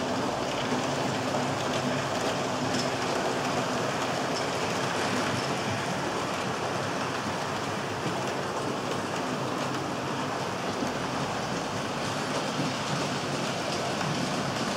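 Model freight train of four-axle tank wagons rolling past on model railway track: a steady, dense clatter of small metal wheels over the rails and rail joints.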